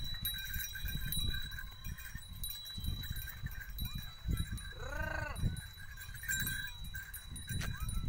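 Field sound of a pair of yoked Hallikar bulls ploughing red soil: a low rumble throughout, with one short call that rises and falls in pitch about five seconds in.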